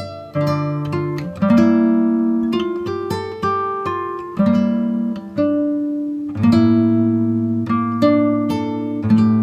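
Background music on acoustic guitar: plucked notes and chords, struck about once a second, each ringing and fading.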